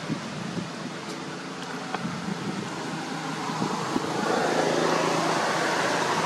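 Steady outdoor background noise from motor traffic, with a low engine hum, growing louder about four seconds in as a vehicle comes closer.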